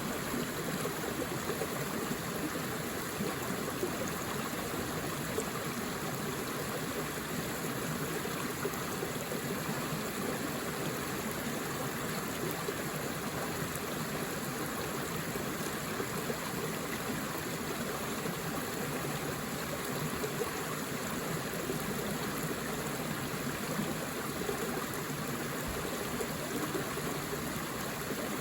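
Forest river flowing steadily over rocks, a continuous rushing and gurgling of water.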